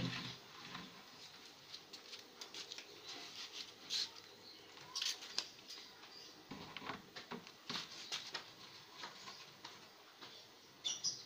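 Scattered small clicks, knocks and scrapes as a laminated-board TV cabinet door panel is handled, lifted off and fitted back against the cabinet by hand, with a few louder knocks about four and five seconds in and just before the end.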